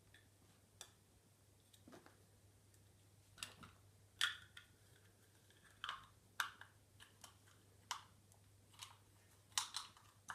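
Faint, scattered light clicks and rustles of small erasers and their plastic packaging being handled.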